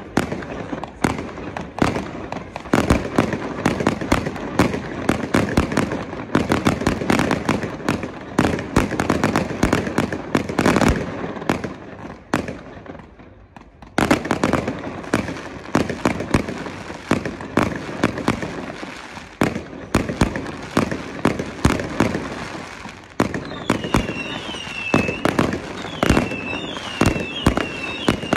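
Fireworks display: rapid bangs and crackling go off one after another, easing briefly before a sharp bang starts them up again about halfway through. Near the end a run of short high whistles joins the bangs.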